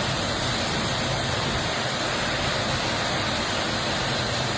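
Heavy rainstorm: a steady, even rush of pouring rain and wind.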